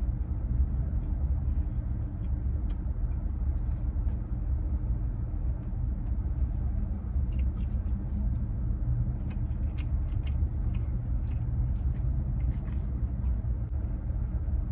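A steady low rumble, with faint small mouth clicks of someone chewing a dessert bite.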